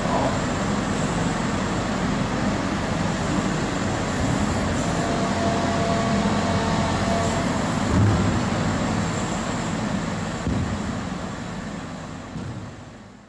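Volvo ECR58D compact excavator's engine running as the machine travels on its tracks across a concrete floor, moving its wheeled rail skateboard along with it. A steady mechanical rumble, with a knock about eight seconds in and another about two seconds later; the sound fades out at the end.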